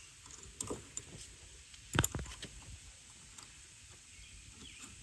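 Light clicks and clinks of small metal hardware, a washer and nut, being handled and put onto a bolt by hand, with a sharper knock about two seconds in.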